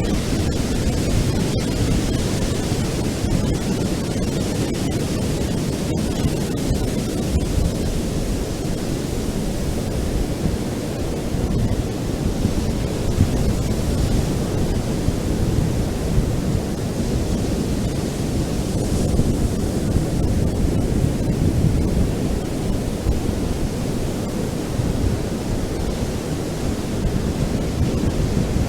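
Ocean surf on a beach: a steady, deep wash of waves with no distinct single breakers standing out.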